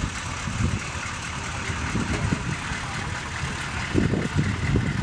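Engine of a military pickup truck running as the truck drives slowly past.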